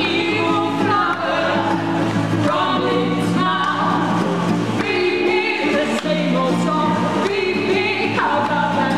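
Two women singing together, with a strummed acoustic guitar underneath.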